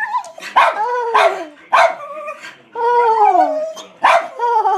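Dogs barking and howling excitedly: short sharp barks, about two a second early on, mixed with two longer howls that slide down in pitch, about a second in and about three seconds in.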